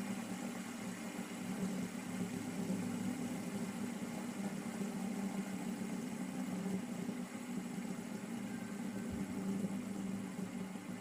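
Fidget spinner spinning on a table top, a steady hum from its bearing that holds evenly throughout.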